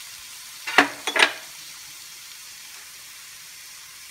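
Shredded chicken masala sizzling steadily in a nonstick frying pan. About a second in, the spatula scrapes and knocks against the pan twice, loudly.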